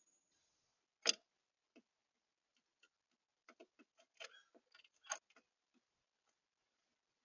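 Irregular sharp taps and clicks of birds pecking at a bird feeder. A single loud tap comes about a second in, and a quick flurry of smaller taps follows later, with one more loud tap among them.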